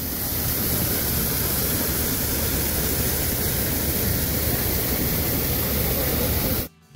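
Loud, steady rushing noise like static, with no pitch in it; it cuts off suddenly near the end.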